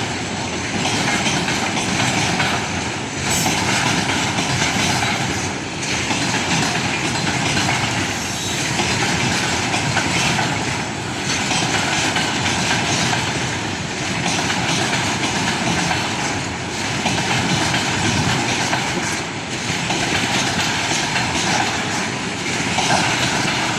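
Freight train wagons rolling past steadily, their wheels clacking in a rhythm that repeats about every two to two and a half seconds.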